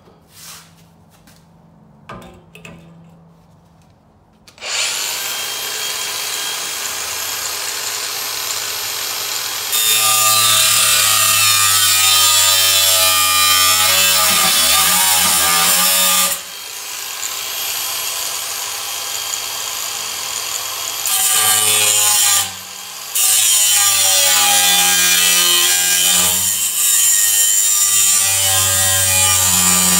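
A few light knocks, then a Makita cordless angle grinder spins up about five seconds in with a steady high whine. From about ten seconds its abrasive wheel bites into steel angle iron, running louder with a rough grinding noise. The cut eases off twice, once for several seconds near the middle and once briefly about three-quarters through.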